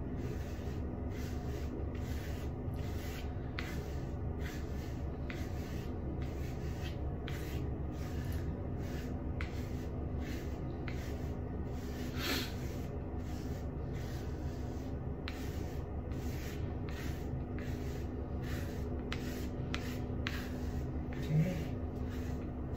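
A silicone scalp brush scraping through short, pomade-set hair in repeated strokes, about one to two a second, with one louder stroke near the middle.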